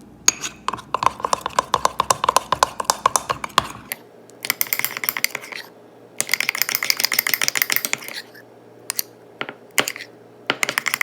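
A utensil rapidly clinking against the inside of a mug as mug-cake batter is stirred to work out the lumps, in three long runs of quick taps with short pauses between, then a few scattered taps near the end.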